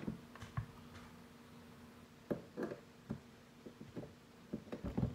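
Scattered small clicks and knocks from a voltage tester's probes and leads being handled and pushed into a wall receptacle, with a cluster of knocks near the end, over a faint steady hum.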